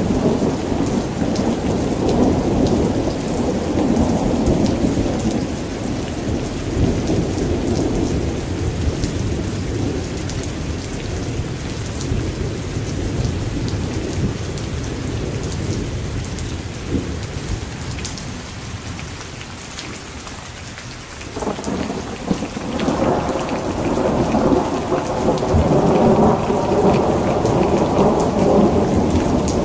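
Steady rain with fine drop ticks, under rolling thunder. The rumble eases about two-thirds of the way through, then swells again towards the end.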